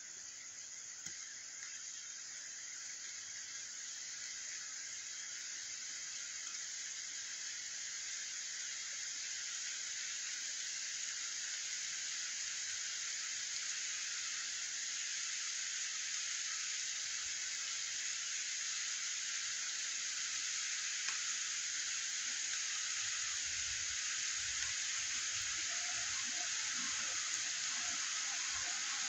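Steady rain falling on a street, a continuous hiss that grows gradually louder as the downpour gets heavier, with a few faint low rumbles near the end.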